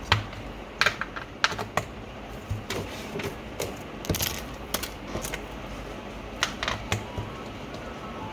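Plastic felt-tip markers clicking and clattering against each other and their clear plastic case as they are handled, in a dozen or so irregular sharp knocks.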